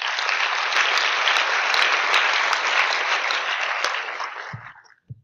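A large audience applauding, dying away near the end.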